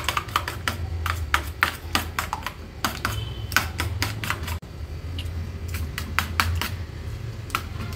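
A metal spoon beats raw egg mixture in a stainless steel bowl: quick, irregular clicks of the spoon striking the bowl, several a second.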